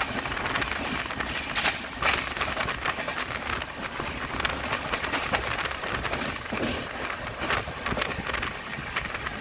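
Express train running at speed: a steady rushing noise with irregular clatter of wheels on the rails.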